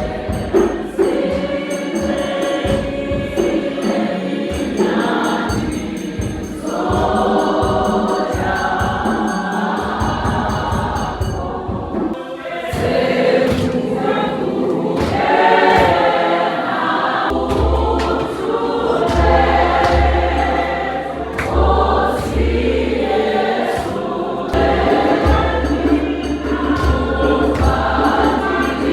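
Choir singing gospel music together, with fast high percussion ticking through the first third. A deep, steady bass line comes in a little past halfway.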